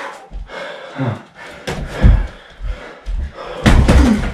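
Boxing gloves thudding as punches land in a sparring exchange: a run of irregular heavy thuds, the loudest about two seconds in and a cluster near the end.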